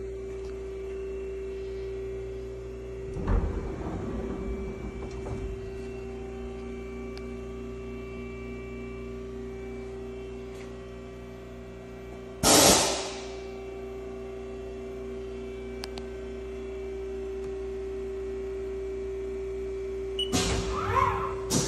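Steady electrical hum of a powered-up Haas ST-20 CNC lathe standing idle, with a short loud burst of noise about halfway through and a thump early on, then knocks and clatter near the end.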